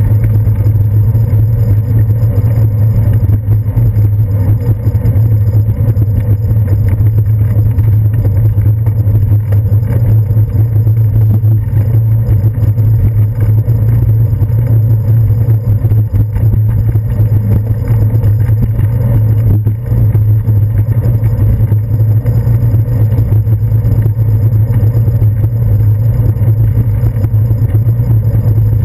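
Steady loud low rumble of road vibration and wind picked up by a handlebar-mounted GoPro Hero 2 as the bicycle rolls along a paved path.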